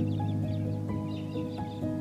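Background music of held notes that change pitch every half second or so, with faint high chirps scattered over it.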